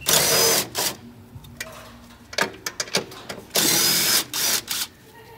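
DeWalt cordless driver running in two spurts, a short one in the first second and a longer one around the fourth second, with a high motor whine. It is undoing the fasteners on top of the front strut mount.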